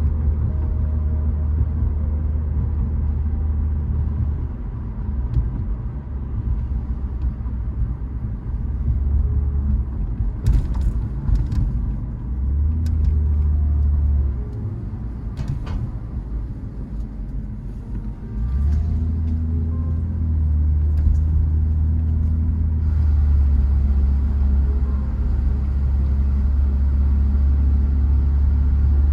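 Motor vehicle driving, a low engine and road rumble that swells and dips, with a few sharp knocks along the way.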